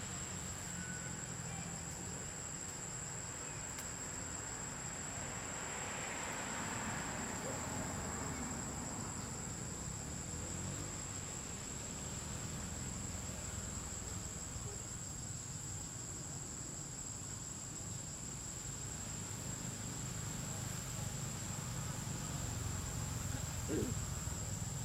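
Insects trilling in one steady, high-pitched unbroken tone over a low rumble.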